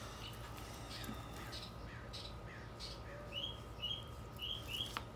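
A small bird chirping, with a few faint notes early, then a quick run of short chirps about two a second in the second half. Under it come a few soft scrapes of a chef's knife slicing fat from a raw pork rack.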